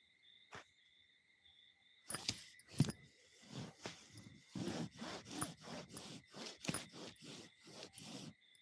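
Handling noise of a phone rubbing and knocking against clothing and a fluffy fabric: an irregular run of scrapes and knocks starting about two seconds in and stopping near the end. A faint steady high-pitched chirring tone sounds behind it.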